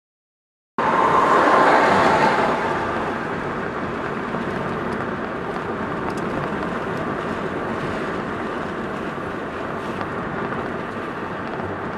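Silence for under a second, then the steady rushing of road and engine noise inside a car's cabin as it drives at highway speed, a little louder for the first couple of seconds.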